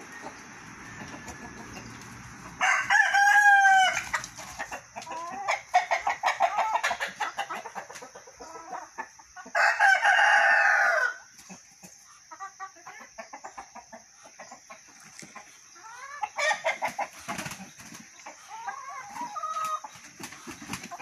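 Roosters crowing twice, each crow about a second and a half long, with bouts of rapid clucking between and near the end.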